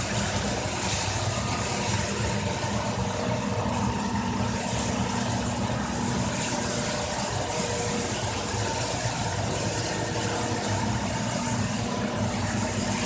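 Factory machinery running steadily: a constant motor hum with several steady tones over an even hiss, unchanging throughout.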